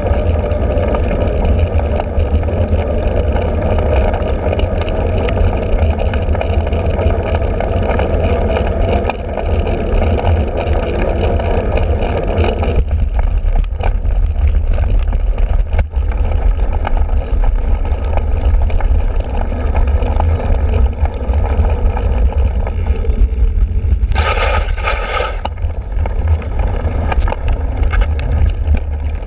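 Wind rushing over a bicycle-mounted camera's microphone, with the cyclocross bike's tyres rolling over a wet paved path and then, from about 13 seconds in, over grass and dirt. A short squeal with several tones sounds about 24 seconds in.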